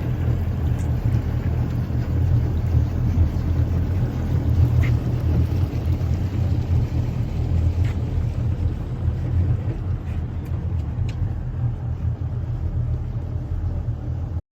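Boat engine running steadily with a constant low rumble.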